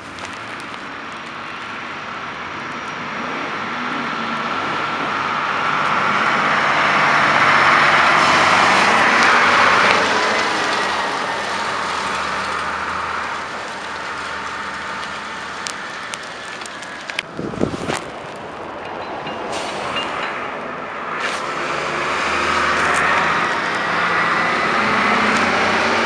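Heavy snow-clearing trucks, a salt spreader among them, driving past on a slushy street: engine and tyre-on-slush noise swells twice as trucks pass. A brief thump and a few clicks come about two-thirds of the way through.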